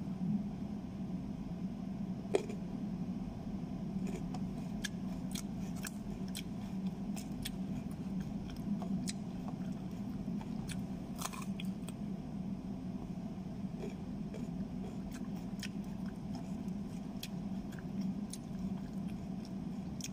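A person biting and chewing a fresh green chili: scattered small crunches and mouth clicks, the sharpest about two seconds in, over a steady low hum.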